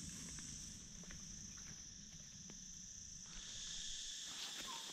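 Insects calling in a steady high-pitched drone, with a second, lower drone joining a little after three seconds in; a few faint clicks over it.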